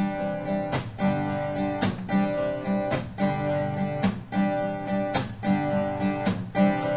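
Acoustic guitar playing a song intro: a full strum about once a second, with single bass notes picked in between.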